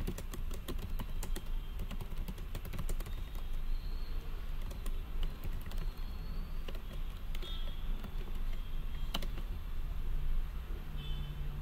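Typing on a computer keyboard: quick runs of key clicks in the first few seconds, then scattered single keystrokes, over a steady low hum.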